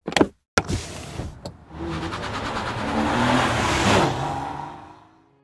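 Logo sound effect: a few sharp hits, then a car engine accelerating past, building to a peak about four seconds in and fading away.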